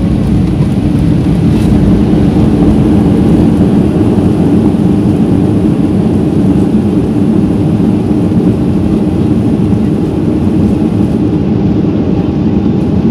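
Jet airliner's engines running loudly with the rumble of the runway roll, heard inside the cabin by the window, a steady roar that builds a little at the start then eases slightly, as on the landing roll.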